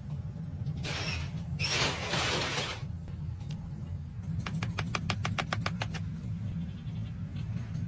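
Repair sounds over a steady low hum: two hissing bursts about one and two seconds in, then a quick run of evenly spaced clicks, about eight a second, for roughly a second and a half near the middle.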